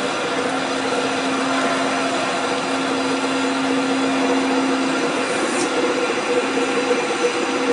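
A lathe running steadily, its motor and spindle giving a constant hum over even machine noise. A brief faint high squeak falls in pitch about five and a half seconds in.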